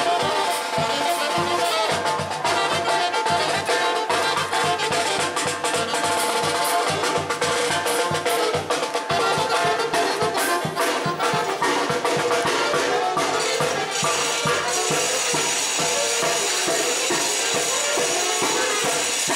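Mexican brass band music: brass playing a melody over a steady beat of bass drum and cymbals, the jingling percussion brightening in the last few seconds.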